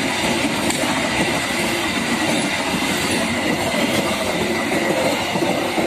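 Putri Deli passenger train coaches rolling past close by: a steady, loud rumble of steel wheels on the rails.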